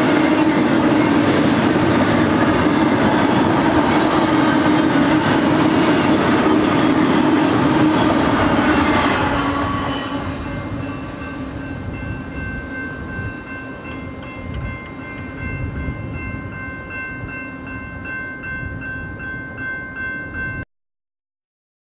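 Double-stack intermodal well cars rolling past on steel wheels. The train noise fades as the end of the train clears about ten seconds in, leaving a grade-crossing bell ringing steadily until the sound cuts off just before the end.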